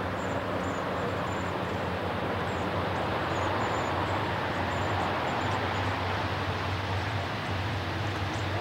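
A consist of three CSX diesel-electric locomotives working hard uphill: a steady, heavy engine drone with a low hum, growing slightly louder as the train approaches.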